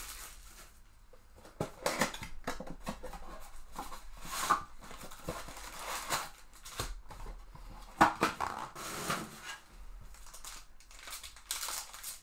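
A cardboard trading-card box being opened by hand, with irregular bursts of cardboard scraping, tearing and sharp clicks. Near the end a foil card pack crinkles as it is torn open.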